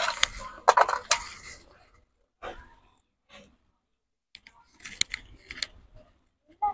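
Clinks and scrapes of stainless steel dishes being handled, in short separate bursts with pauses between, the busiest in the first two seconds and again about five seconds in.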